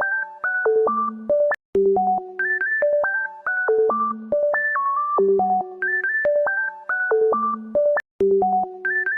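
A short synthesizer melody of quick stepped notes, played in a loop that repeats about every three seconds, with two brief breaks between repeats.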